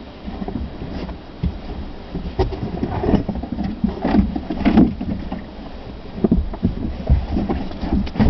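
Car driving, heard from inside the cabin: a low rumble of engine and tyres with irregular knocks and rattles.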